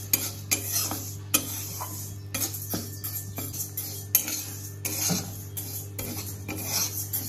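Flat metal spatula scraping and knocking against a metal kadai as dry split moong dal is stirred and roasted, the grains rattling across the pan, in irregular strokes.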